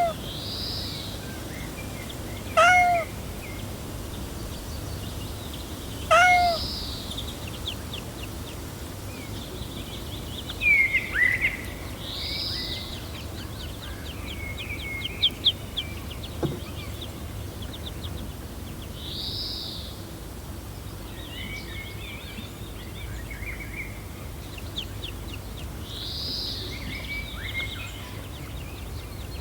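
A cat meowing: three short, high meows in the first several seconds, over steady background birdsong of repeated high chirps and trills.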